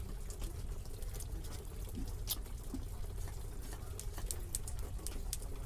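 A knife scraping and cutting a hilsa fish on a wooden chopping block: scattered crisp, wet clicks and scratches over a steady low rumble.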